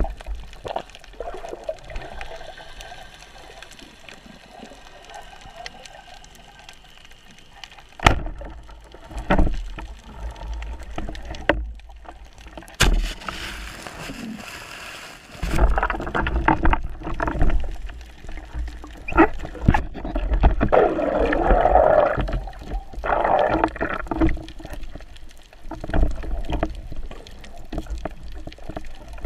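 Underwater water noise heard through a diver's camera housing while spearfishing: muffled sloshing and gurgling with scattered knocks and clicks. A loud sharp click comes about eight seconds in, and the water noise grows busier and louder in the second half.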